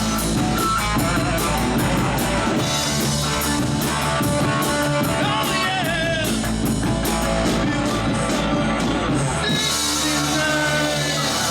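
Live rock band playing: electric guitar over bass and a drum kit, with an even beat of cymbal strokes. Near the end the beat stops and the band rings out more openly.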